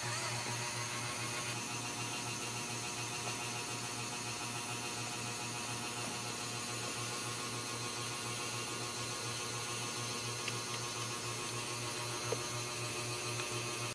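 Steady low hum with a faint hiss, and a faint click near the end.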